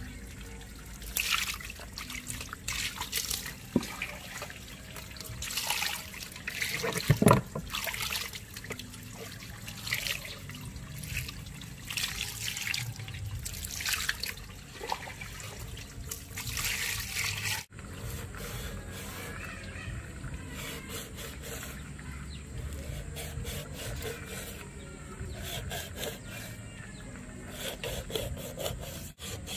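Wet squelching and trickling of water as a whole raw grouper is gutted and rinsed by hand on a wet wooden board, in irregular splashy bursts. After a sudden break, the handling is quieter.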